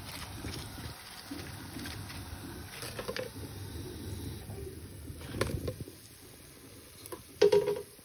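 Chips frying in hot oil, a steady low bubbling and sizzling that drops away about six seconds in, with a few clicks of the slotted spoon as the fried chips are lifted out and tipped into the colander. A single loud, ringing knock comes near the end.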